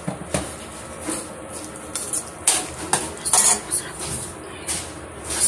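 Metal spoon stirring thick masala gravy in a metal kadai, clinking and scraping against the pan in irregular knocks, the loudest cluster about two and a half to three and a half seconds in.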